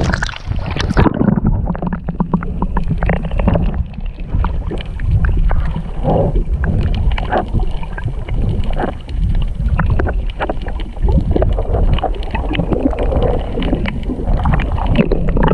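Wind rumbling on the microphone on a boat, with irregular splashing and sloshing of water as a fish is held in the water for release.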